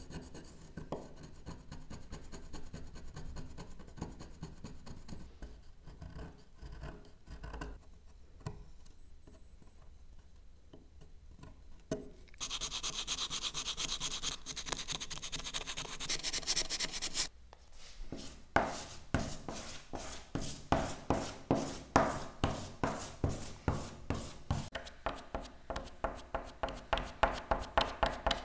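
Hand tools worked on a wooden door. First a blade scraping faintly in the grooves, then a sanding sponge rubbing steadily for about five seconds to smooth the surface. Then a long run of short, even scraping strokes, about two a second, as a small putty knife works along the molding.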